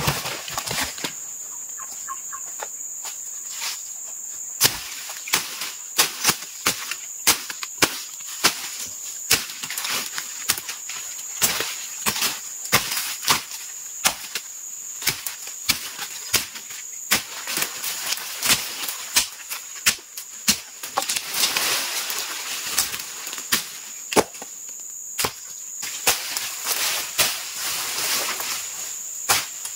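Repeated sharp chopping blows, irregular, about one or two a second, from a blade hacking at roots and undergrowth. A steady high-pitched insect drone, crickets or cicadas, runs beneath.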